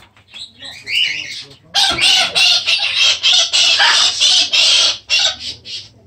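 Macaw squawking loudly: a short call about half a second in, then a run of harsh, raspy screeches for about three seconds that stops near the end.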